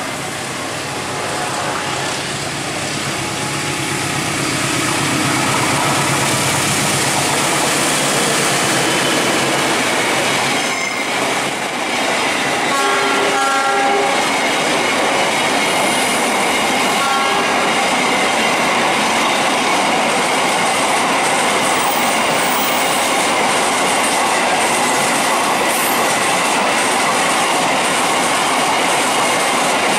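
Freight train passing close by over a railway turnout: the diesel locomotive grows louder over the first few seconds, then a steady rush of wagon wheels clattering over the switch and rail joints, with a high wheel squeal. The locomotive horn sounds briefly about halfway through.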